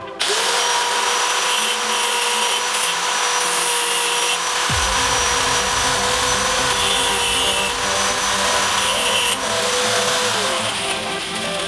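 Electric angle grinder spinning up, then grinding the surface of a sheet-steel case in a steady run with intermittent harsher stretches. It winds down with a falling whine as it is lifted off near the end.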